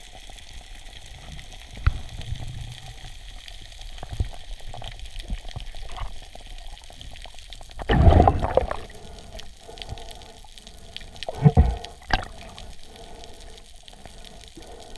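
Underwater sound through a diver's camera housing: a steady hiss with faint crackling. About eight seconds in comes a loud rushing thump lasting most of a second, and about three seconds later two sharper knocks.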